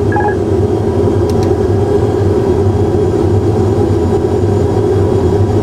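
Steady cockpit noise of an Airbus A320 full flight simulator in flight: the simulated engine and airflow drone, a low hum under an even mid-range rush.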